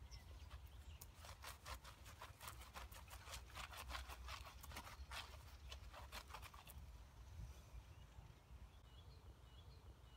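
Faint rustling and scuffing of clothing and hands in quick short bursts over the first two thirds. Near the end, a bird chirps softly in short repeated notes over quiet outdoor air.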